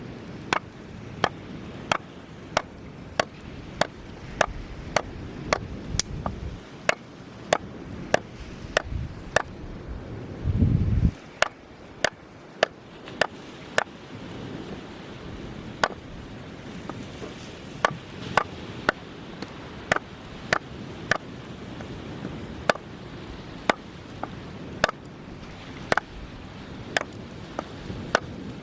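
Firewood being split: sharp, regular strikes about one and a half a second, with a short pause past the middle, over a steady low rumble of surf. A brief louder low rumble comes at about the eleven-second mark.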